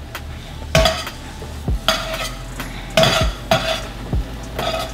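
Metal spatula scraping and clanking against a stainless steel frying pan while stirring ground turkey and spice, about five strokes, each with a short metallic ring.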